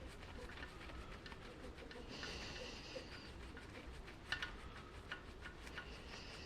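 Faint scattered clicks and light knocks of small metal and plastic parts being handled while a paintball marker is taken apart for scrap, with one sharper click about four seconds in. A faint high-pitched sound lasting about a second comes just after two seconds.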